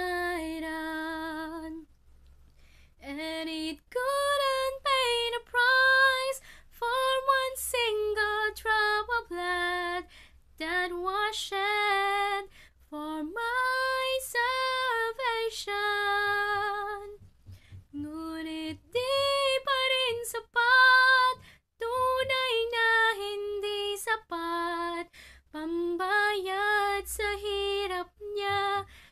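A woman singing a gospel song solo and unaccompanied, in sustained phrases broken by short pauses for breath.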